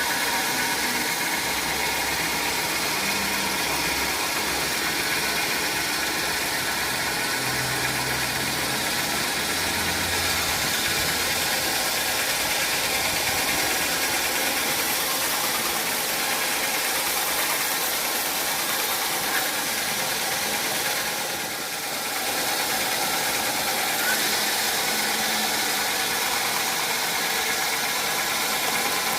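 Sawmill machinery running steadily, with a dense mechanical noise and a brief dip in level about three-quarters of the way through.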